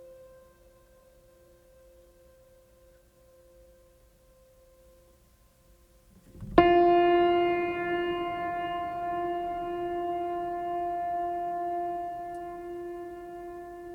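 A musical sound effect: a faint held tone, then about halfway a sudden loud sustained note, rich in overtones like a keyboard or horn, that holds and slowly fades.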